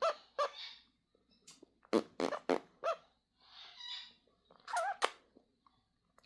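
A peach-fronted conure and its owner trading short, sharp, squeaky pops and raspberry-like mouth noises, with the bird imitating the owner's silly noises. The noises come in quick little clusters, some with a fast bend in pitch, and there is a brief scratchy chatter in the middle.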